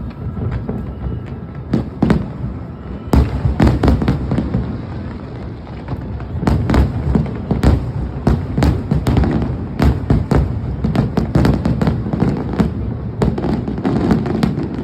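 Finale fireworks: aerial shells bursting in a rapid, densely packed barrage with crackle. The bursts come more sparsely for about the first three seconds, then thicken into a near-continuous volley.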